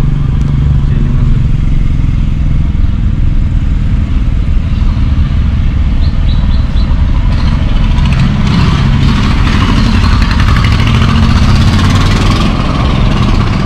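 Engine and road noise of a car moving slowly in traffic, heard from inside the cabin as a steady low rumble. From about eight seconds in, a broader rushing noise swells over it for a few seconds and then drops away.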